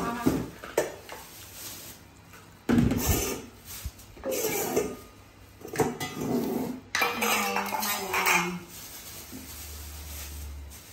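Plastic basins and a stainless steel bowl being handled and set down on a wooden floor: a series of clattering knocks and clinks, the loudest knock about three seconds in.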